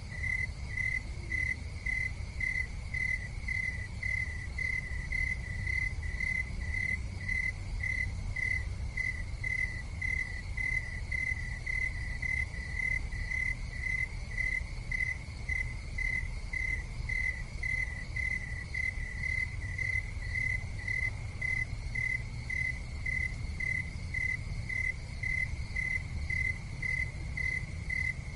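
A cricket chirping in an even rhythm, about two high chirps a second, over a low steady rumble.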